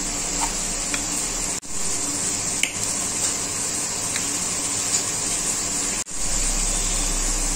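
Steady hiss with a few faint clicks of a metal spoon against a ceramic bowl as dry semolina, gram flour and curd are stirred together. The sound cuts out for an instant twice.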